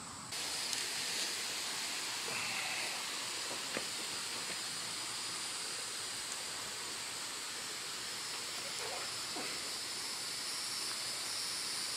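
Lawn irrigation sprinkler heads spraying water: a steady hiss that begins suddenly just after the start, with crickets chirping underneath.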